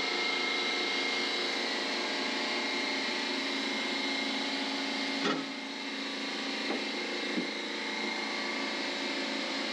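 Electric belt sander running steadily against fibreglass, grinding back the gelcoat along a bonded hull seam, with a brief louder scrape about five seconds in.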